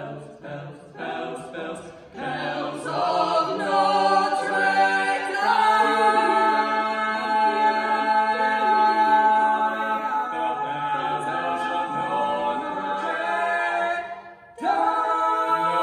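Four-voice barbershop quartet singing a cappella in close harmony. It starts with short separate chords, then builds into long held chords. A brief break near the end is followed by a loud chord.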